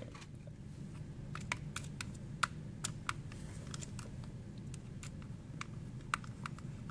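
Irregular light clicks and taps of hands handling small screwdrivers, screws and the plastic can-opener housing during assembly, a few a second.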